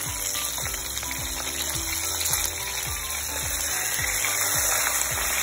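Background music with a steady beat of about two thumps a second, over the sizzle of hot oil frying a whole chicken in a pan.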